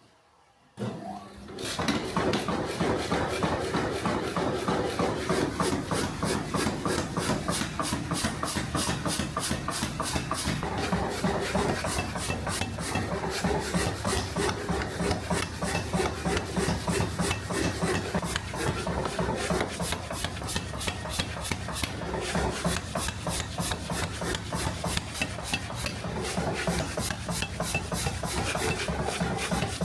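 Steel blade being worked by hand with a rasping tool in quick, repeated back-and-forth strokes, starting about a second and a half in after a brief silence.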